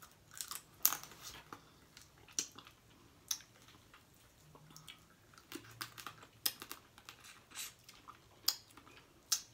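Close-miked eating of blue crab: scattered sharp, wet clicks and crunches of chewing and lip smacking, with quiet gaps between them.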